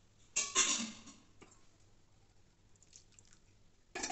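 Brief wet squelching and sloshing of vegetables in water in a steel pan: once about half a second in, fading over a second, and again near the end, with a few faint clicks between.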